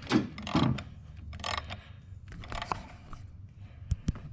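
A metal wrench working on the serpentine belt tensioner pulley bolt: several short scrapes of tool on metal, and a couple of sharp clicks near the end.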